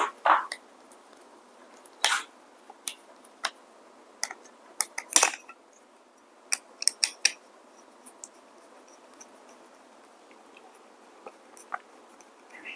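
Irregular light clicks and metallic taps of a screwdriver against the DF64 grinder's metal chute housing and the plastic declumper being fitted, a few sharper knocks and a quick run of clicks about halfway through.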